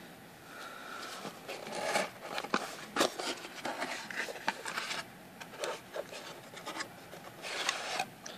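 Cardboard Loot Crate box being worked open by hand: the lid and flaps rub and scrape against the box, with irregular rustles and sharp taps, busiest in the middle and again near the end.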